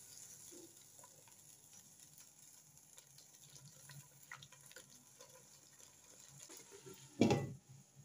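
Faint simmering of chicken, potatoes and tomatoes in a little water in a metal pot, with a spatula scraping and stirring in it. Near the end a loud clunk as a glass pot lid is set on.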